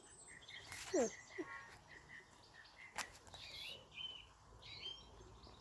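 Faint birdsong: small birds chirping in short, repeated phrases, with one louder falling call about a second in and a single sharp tick about three seconds in.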